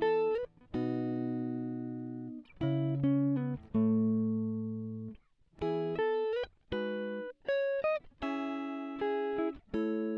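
Background music of guitar chords, each struck and left to ring out before the next, with the chord changing every second or two.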